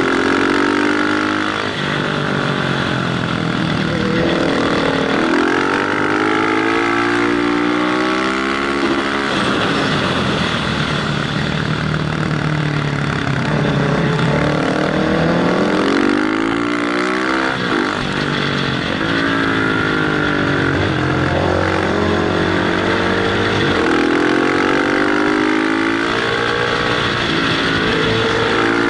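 Motorcycle engine under way at speed, its pitch climbing over several seconds and dropping back several times as the throttle opens and closes, over a steady rush of wind.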